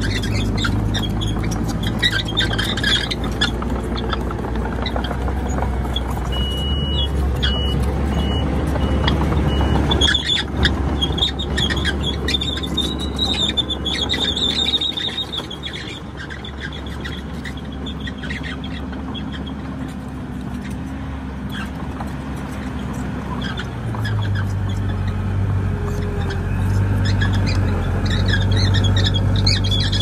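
Komatsu D31PX crawler bulldozer working: its diesel engine runs steadily under load while the steel tracks squeal and chirp. The engine note drops about ten seconds in and rises again a little after twenty seconds.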